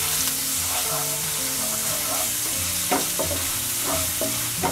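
Ginger–green chilli paste sizzling in hot oil in a nonstick kadhai while a wooden spatula stirs it, with a few spatula scrapes and taps against the pan in the second half.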